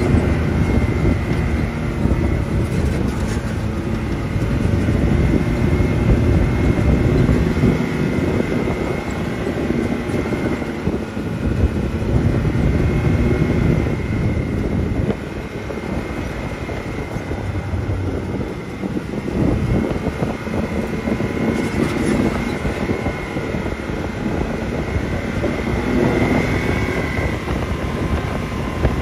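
Side-by-side UTV engine and drivetrain running steadily while driving on the trail, with a thin, steady high whine over the rough low rumble; it eases off a little about halfway through.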